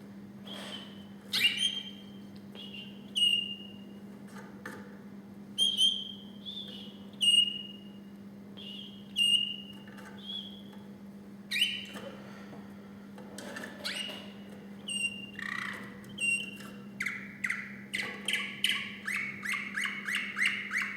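Male canary singing: short, clear whistled notes about a second apart. About two-thirds of the way through it breaks into a faster run of repeated notes, several a second. A steady low hum runs underneath.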